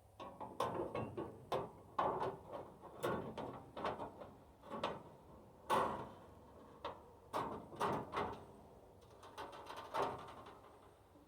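Band sawmill blade being worked onto its wheels by hand: irregular metallic clanks, clinks and scrapes.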